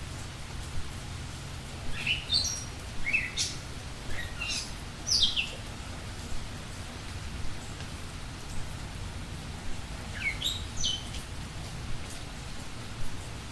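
Birds chirping: short quick chirps in a cluster, then a couple more near the end, over a steady low background hiss and hum.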